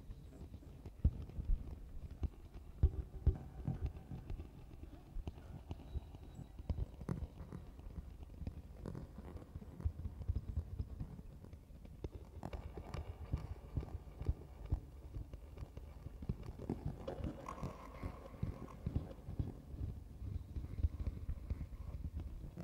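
Sparse, irregular low knocks and clicks from a live electronic sound performance. Brief higher tones sound about 13 seconds in and again near 17 seconds.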